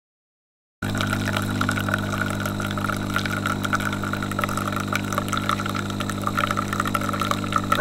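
Silent for the first second. Then the DeLonghi PrimaDonna Class ECAM556.55.SB fully automatic coffee machine brews a coffee: its pump hums steadily while coffee streams from the twin spouts into a glass cup.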